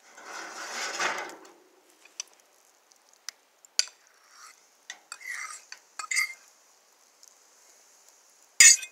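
Metal utensils scraping and clinking on a charcoal grill grate: a long rasping scrape at the start, scattered clicks and clinks, and one sharp clack near the end.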